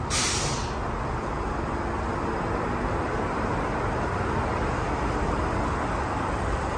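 Stockholm metro train standing at the platform with its doors open, giving a steady hum of running equipment. A short hiss comes just after the start.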